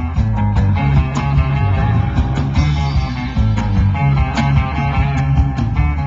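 Live rock band playing an instrumental passage: electric guitar, bass guitar and drum kit, with regular drum hits under the guitar parts.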